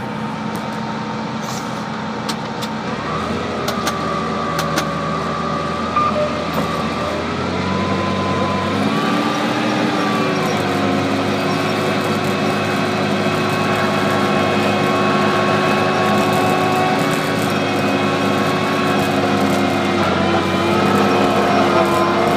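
Tractor engine running steadily under load while pulling a tillage implement through stubble, its pitch shifting up and down a few times.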